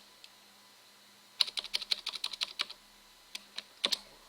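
Typing on a computer keyboard: a file name being keyed in. After about a second and a half of quiet comes a quick run of about a dozen keystrokes, then a few more scattered keystrokes near the end.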